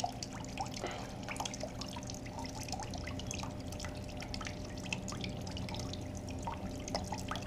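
Green-tinted flush water and old coolant draining in a thin stream from a 2008 Yamaha YZF-R6's engine drain plug, trickling and dripping into a drain pan, with many small irregular drips and splashes. The green tint marks old coolant still being flushed out of the cooling system.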